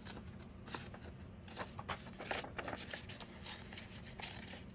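Paper and cardstock being handled: soft, scattered rustles and scrapes as the sheet is moved and lifted.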